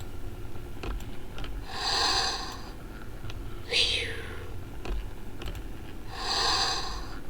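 Fisher-Price otter soothing plush toy playing its recorded breathing sound: slow, even breaths on a cycle of about four and a half seconds. A soft, drawn-out breath comes about two seconds in and again near the end, with a shorter, sharper breath near four seconds. Faint clicks fall between the breaths.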